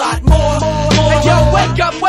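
Background music with a strong bass beat and a melody line.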